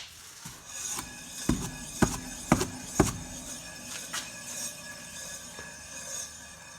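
Front wheel of a VAZ-2107 Zhiguli spun by hand on freshly greased new tapered hub bearings: four knocks about half a second apart as it is spun up, then a light, evenly repeating rubbing of the brake pads as it turns, with no bearing hum.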